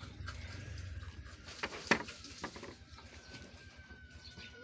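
Quiet outdoor ambience with a low steady rumble and a few sharp clicks, the loudest about two seconds in. A faint, thin, slowly falling whistle-like call begins past the three-second mark, like a bird.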